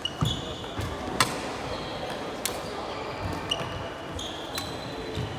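Badminton rally: racquets strike the shuttlecock with sharp cracks about once a second, the loudest about a second in. Shoes squeak briefly on the wooden court floor between shots, and the hall echoes.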